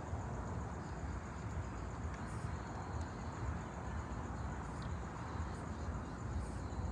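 Steady outdoor background noise, a low rumble with a lighter hiss above it, with no distinct events.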